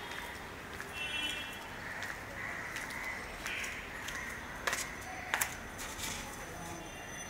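Crows cawing several times, with two sharp clicks about five seconds in.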